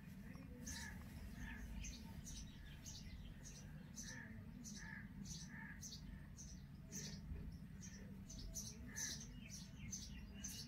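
Indian robin nestlings giving thin, high begging chirps, a few a second, coming faster and thicker in the second half, over a low steady background rumble.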